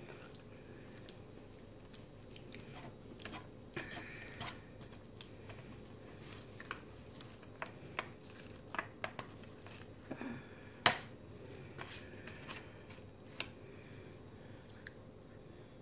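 Eating sounds: soft chewing of lasagna, with scattered clicks and scrapes of a metal spoon and fork against an aluminium foil tray. One sharp clink about eleven seconds in is the loudest.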